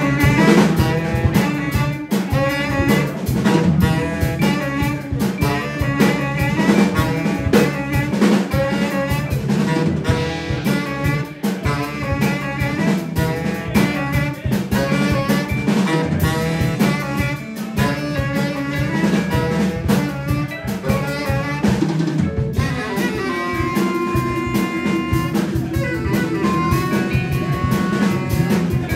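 Live jazz band playing: saxophone leading over a drum kit, keyboard and electric bass. About twenty-two seconds in, the playing changes to long held notes over the continuing drums.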